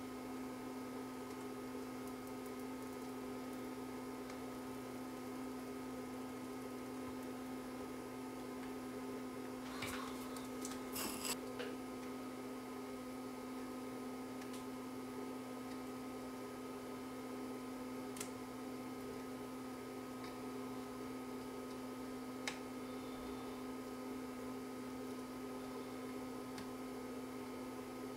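Steady low electrical hum, with a few faint clicks and a brief rustle about ten to eleven seconds in and a couple of single ticks later.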